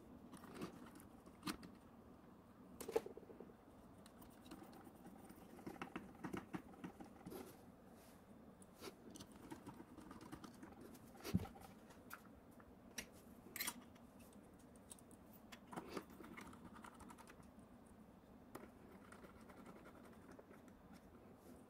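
Faint, scattered clicks and taps of a small screwdriver and screws against the metal housing of a 3D printer's print-head module as its screws are driven back in, with a few sharper knocks.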